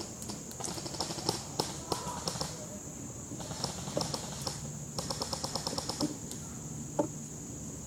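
Airsoft guns firing in rapid bursts of sharp, evenly spaced clicks: several strings in the first half, a fast second-long burst about five seconds in, and a single crack near the end. A steady high-pitched whine runs underneath.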